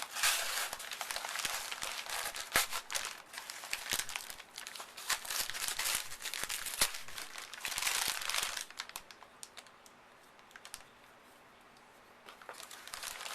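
Shipping envelope crinkling and crackling as it is slit open with a knife and pulled apart, with many sharp crackles. The rustling dies down for about three seconds near the end, then starts up again.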